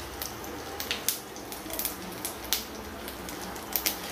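Mustard seeds, curry leaves and dried red chillies frying in hot coconut oil in a pan: a soft sizzle with scattered sharp pops as the mustard seeds begin to splutter, the sign that the oil is hot enough for the tempering.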